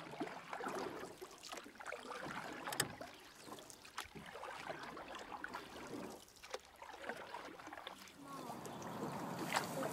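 Quiet ambience aboard an anchored boat: faint lapping water with scattered small knocks and clicks.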